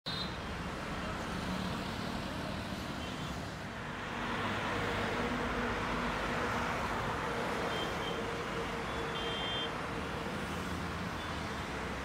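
Steady road traffic on a busy multi-lane highway: the continuous rush of passing cars and motorcycles, swelling from about four to seven seconds in.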